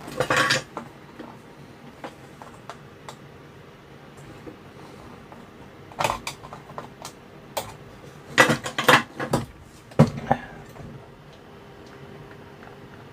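Small metal objects clinking and knocking in a few clusters of short sharp hits, the busiest near two-thirds of the way in, over a faint steady hum.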